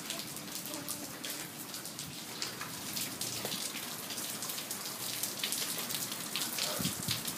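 Hail and rain falling on a patio and cars: a dense, steady patter of many small, sharp ticks.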